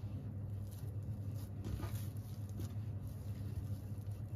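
Oiled hands handling soft bread dough on a wooden worktop, making faint soft pats and light ticks over a steady low hum.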